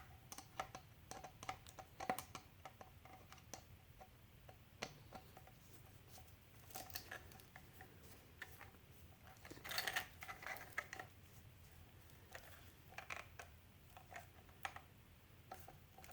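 Faint, irregular small clicks and scrapes of metal hardware and a hand tool as a bracket's bolt is tightened down into its nut, with a brief flurry of handling noise about ten seconds in.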